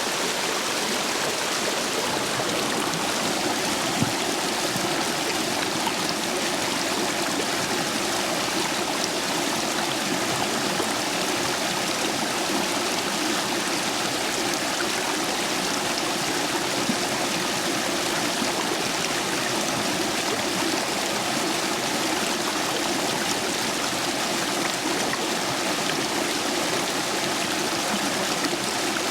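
A stream rushing steadily over stepping stones, running high after days of heavy rain.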